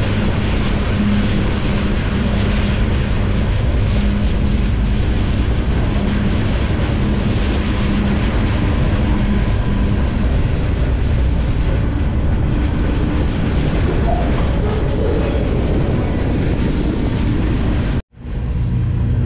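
Freight train running, heard from aboard a moving freight car: a steady, loud running noise of wheels on rail with a faint steady hum. It cuts off suddenly near the end.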